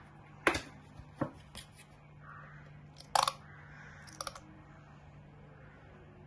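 Plastic barbecue sauce bottle being handled and squeezed over a bowl of wings: a few short, sharp plastic clicks and crackles, loudest about half a second in and again about three seconds in.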